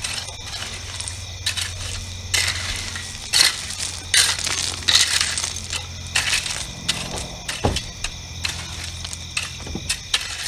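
Loose gravel crunching and scraping in irregular bursts as it is shovelled and spread by hand, over a steady low hum.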